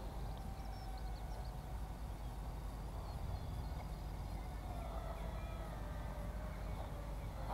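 Faint whine of a toy C-17 model plane's small electric motors flying high overhead, its pitch drifting slightly, over a low steady wind rumble on the microphone.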